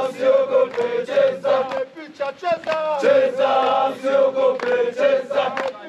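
A group of men singing a chant together, several voices with sliding pitches.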